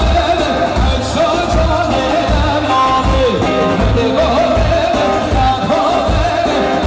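Live wedding band music: a voice singing a wavering melody over a steady, pulsing beat.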